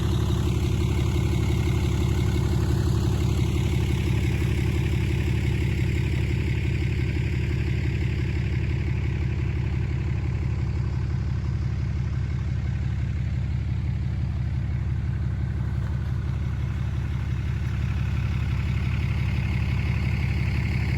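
A vehicle engine idling steadily at an even, unchanging pace.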